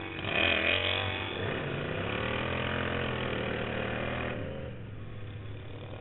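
Overhead-valve V-twin engine of a racing lawn tractor accelerating hard. Its pitch climbs during the first second, then it runs at high revs with the note rising and falling slightly. About four and a half seconds in, the note drops and gets quieter.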